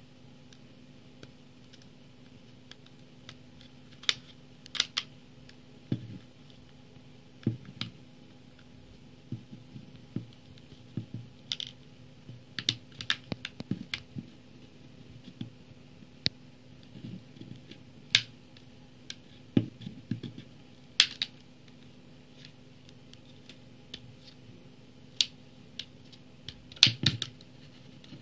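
Plastic case of a Bookeen Cybook Odyssey HD Frontlight e-reader being pried apart along its edge by hand: irregular sharp clicks and snaps, some in quick clusters, as the case's clips come loose, with soft handling scrapes in between.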